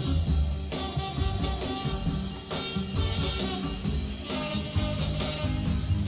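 Recorded music for a dance routine, with guitar and a drum kit keeping a beat.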